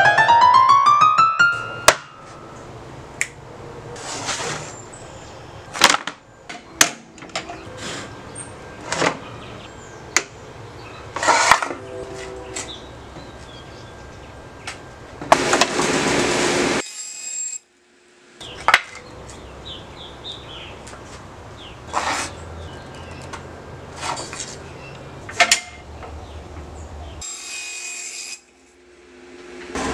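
A short keyboard-music phrase of rising notes stops about two seconds in. Then come scattered workshop handling sounds: sharp clicks and knocks of plywood pieces and hand tools, with a longer rasping noise lasting about a second and a half midway.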